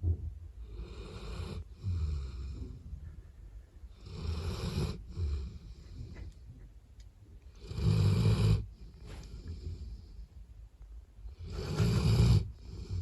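A sleeping Labrador retriever snoring, one rasping breath every few seconds, the loudest snores about eight and twelve seconds in. The snoring comes from it sleeping with its neck bent awkwardly.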